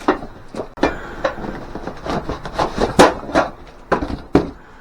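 Irregular knocks and clunks of the flat-packed welding cart parts and their cardboard box being handled during unpacking, the loudest knock about three seconds in.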